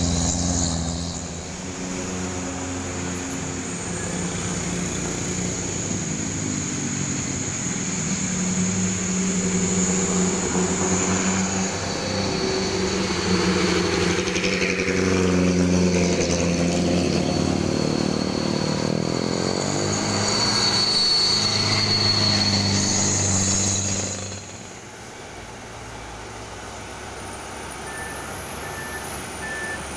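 Heavy buses and trucks running past one after another, their diesel engines pulling with a high steady whine over the engine that sounds like an aircraft. About 24 s in it goes quieter as a line of trucks comes up, and near the end a steady repeated beeping starts.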